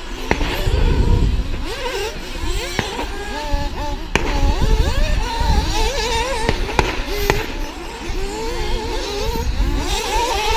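Several radio-controlled model racing cars running around the track together, their motors whining and rising and falling in pitch as they accelerate and brake. A few sharp knocks are heard along the way, and wind rumbles on the microphone.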